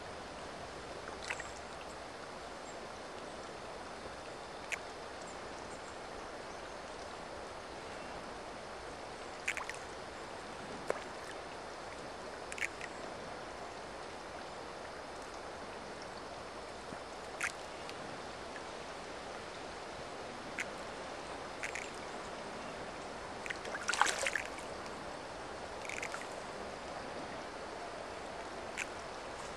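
Trout splashing as they take feed at the pond surface: short sharp splashes every few seconds, the loudest about two-thirds of the way through, over a steady rushing background.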